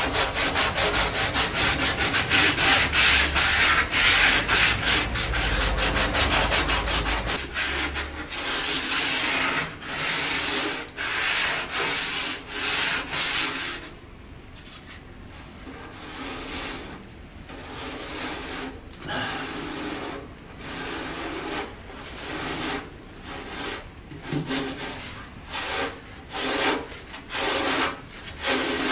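Hand brush scrubbing the rusty steel underside of a 1953 Chevrolet 3100 truck's cab. Fast, steady back-and-forth strokes run for about the first seven seconds. After that the strokes come slower, in short separate runs.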